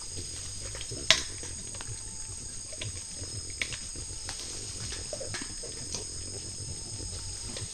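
Night insects, crickets or the like, trilling steadily, with scattered sharp clicks and snaps from peccaries foraging close by. The loudest click comes about a second in.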